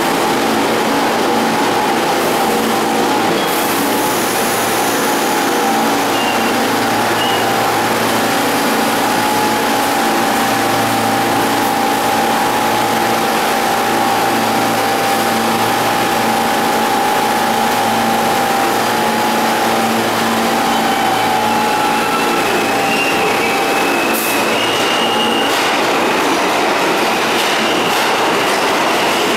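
Pullman-Standard R46 subway train at an underground station platform, running loud and steady. It comes in and stands with a steady hum, then starts to move off near the end, with brief high wheel squeals.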